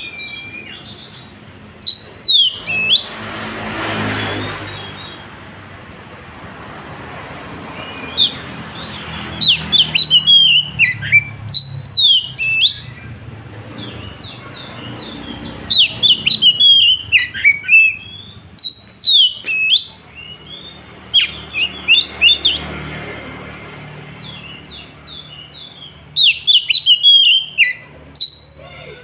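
Oriental magpie-robin singing in repeated bursts of loud, sharp whistled phrases that bend up and down in pitch, with short pauses between the bursts.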